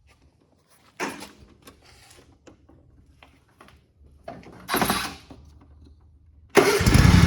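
A few light clicks and rustles, then about three-quarters of the way through a zero-turn lawnmower's engine starts abruptly and runs loudly and steadily.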